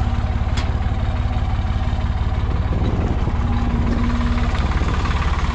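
Hattat 4x4 tractor's diesel engine running steadily, with an even, rapid firing pulse.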